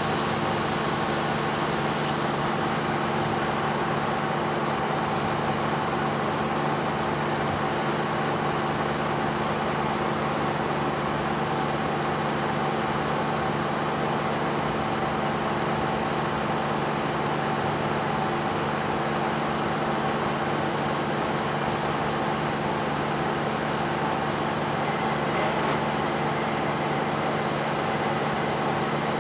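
Steady mechanical drone with a constant low hum, running unchanged throughout.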